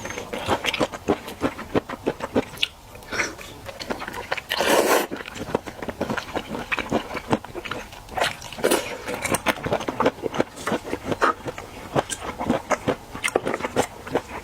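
Close-miked chewing of sea cucumber: wet smacking and crackly clicks from the mouth, with one longer hissing mouth sound about four and a half seconds in.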